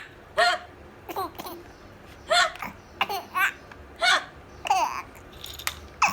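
Baby giggling in short, high-pitched bursts, about one every half second to second, with little babbling noises.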